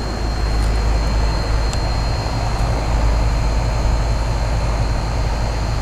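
1996 Janitrol central air-conditioner condensing unit running steadily: the condenser fan blowing air and the compressor humming low, with a thin high whine over it.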